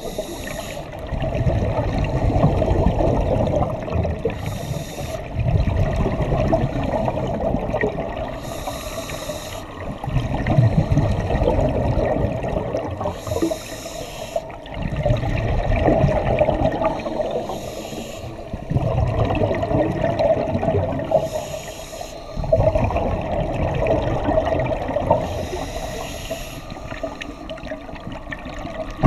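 Scuba regulator breathing heard underwater: about six regular breaths, each a short hiss of inhalation through the demand valve followed by a longer rumbling gurgle of exhaled bubbles, over a steady hum.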